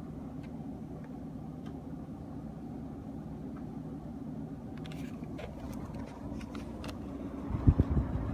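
Panasonic CS-GX226C room air conditioner's indoor unit running with a steady low drone, the abnormal noise that the owner says came back even after the fan and motor were replaced under warranty. A few light clicks come past the middle, and several loud low thumps come near the end.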